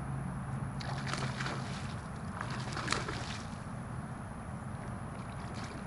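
Water splashing and sloshing in two short bursts, one about a second in and another around three seconds in.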